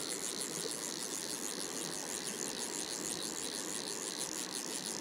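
Steady hiss of river water pouring through a hatch into the pool.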